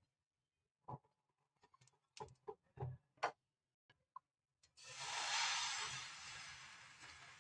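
Thin spinach batter poured into a hot oiled non-stick pan, sizzling from about two-thirds of the way through and slowly dying down as it is spread. Before it, a few sharp clicks and knocks.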